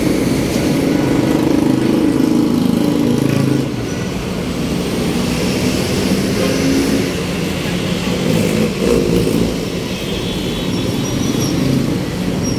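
Busy city road traffic: motor vehicle engines running and passing close by, their pitch rising and falling, over a steady rush of road noise.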